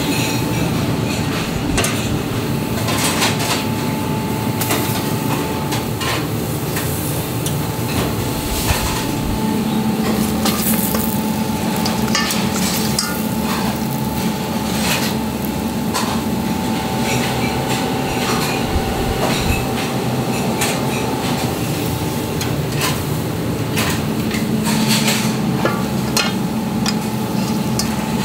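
Metal roasting hooks and skewers clinking and clanking against a stainless-steel bowl and a drum roasting oven as roast char siu pork is unhooked, in short irregular knocks over a steady background hum.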